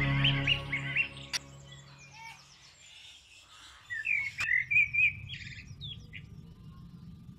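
Parrots chirping and squawking in short slurred calls, loudest about four seconds in, with a couple of sharp clicks. Background music fades out in the first two seconds.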